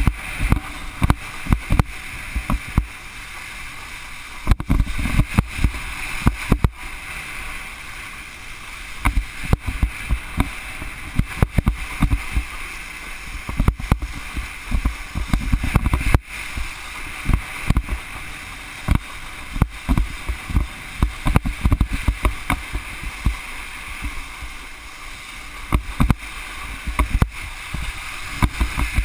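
Wakeboard planing over choppy water behind a cable tow: a steady hiss of water spray with frequent, uneven low thumps and buffeting.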